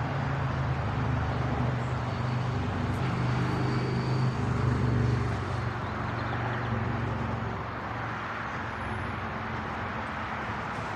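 A steady low engine hum over a rushing background noise. It grows louder for a few seconds about two seconds in, then eases off, like a vehicle going past.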